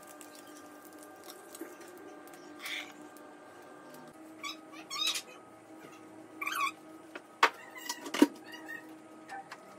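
Mini waffle maker and metal cutlery being handled: a few short squeaks, then two sharp clacks in the later part as the waffle maker's lid is shut and a fork and spoon are set down on the counter.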